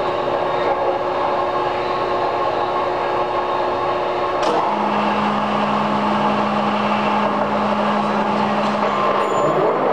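TARNOW engine lathe's geared headstock running with the chuck spinning. About four and a half seconds in there is a sharp click, and the gear noise gives way to a steadier hum as the spindle stands still.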